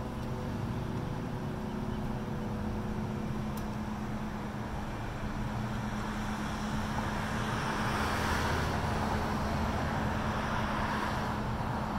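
Road traffic: a steady low hum of engines, with a car driving past that is loudest about eight to eleven seconds in.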